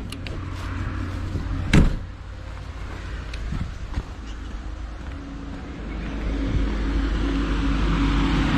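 Steady low hum with one sharp knock about two seconds in. From about halfway, the whir of the RV's 48 V DC air conditioner fan grows louder and holds steady. The fan is spinning but the compressor is not running.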